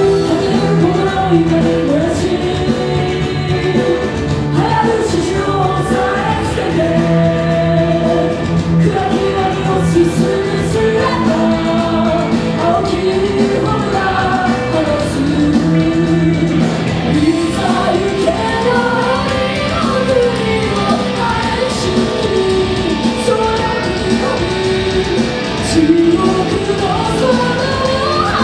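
Rock song with a lead singer over a band with electric guitars, the vocal line rising and falling throughout.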